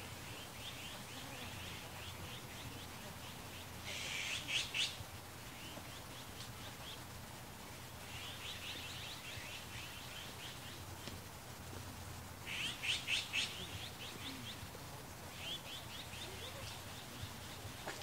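Azure-winged magpies calling: rapid, harsh rattling call series, loudest in two bursts about four seconds in and again past the middle, with softer chattering runs between.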